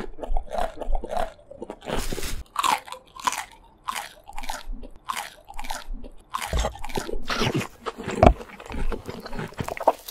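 Crisp biting and chewing of crunchy raw vegetables: a run of separate crunches, about two a second, with one sharp, louder bite near the end.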